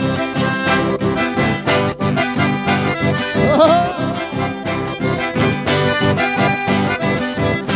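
Accordion-led dance music played live, with a steady, even beat.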